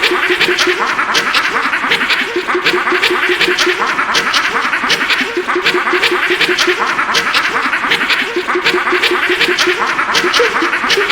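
YTPMV remix: a short cartoon vocal sample, chopped and repeated rapidly at one pitch in runs with brief gaps, its pitch wobbling on each repeat, over a fast steady beat of percussive hits.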